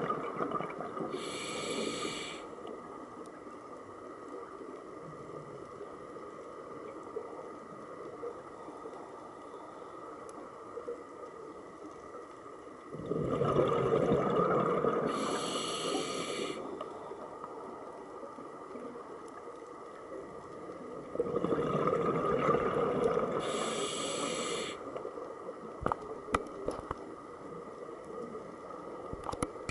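Scuba diver breathing through a regulator, heard underwater: three breath cycles, each a few seconds of rushing bubbles with a short high hiss near its end, and a faint steady tone between them. A few small clicks near the end.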